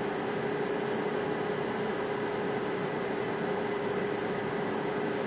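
Steady background hum and hiss with a faint constant tone, even throughout.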